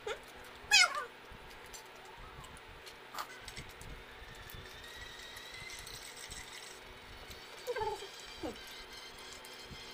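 A short, high cry that falls steeply in pitch about a second in, followed by two quieter falling cries near the end. Underneath is the steady hum of an electric fan, with a few faint ticks.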